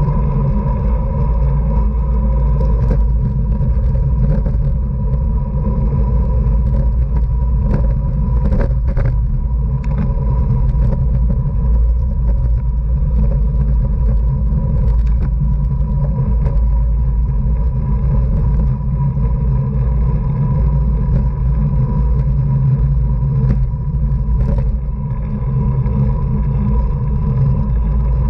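Wind buffeting a camera microphone on a racing bicycle: a steady, heavy low rumble, with a few short knocks.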